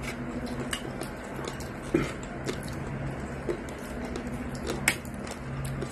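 Eating sounds at a table: mouth sounds of chewing and scattered sharp clicks of utensils and fingers against plates, the loudest clicks about two seconds and five seconds in. A steady low hum runs underneath.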